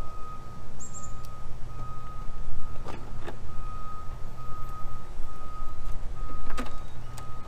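A repeating electronic beep at one steady pitch, pulsing about every half second over a constant low engine rumble, like a vehicle's reversing alarm. A few sharp clicks of plastic parts snapping together come about three seconds in and again near the end.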